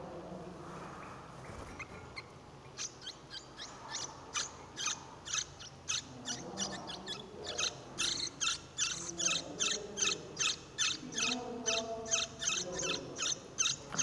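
Bulbul nestlings begging for food with rapid, high, repeated chirps, about four a second. The chirps start a few seconds in and grow louder as a parent comes to the nest to feed them.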